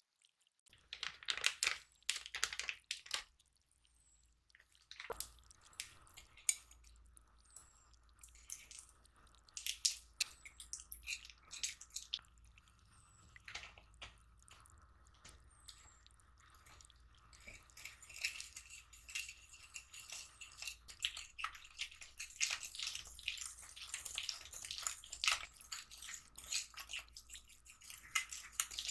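Wire balloon whisk beating butter and powdered sugar in a glass bowl: the wires clink and scrape against the glass, sparse at first and then dense and continuous in the second half as the mix is creamed smooth.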